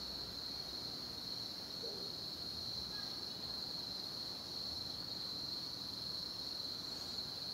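Crickets chirring in a steady, unbroken high-pitched chorus, over a low background rumble.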